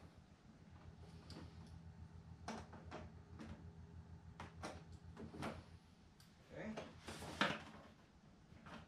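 Light clicks and knocks of plastic parts being handled as a large RC plane tundra wheel is turned and fitted onto its wire landing-gear axle, the loudest knock about seven and a half seconds in, over a steady low hum.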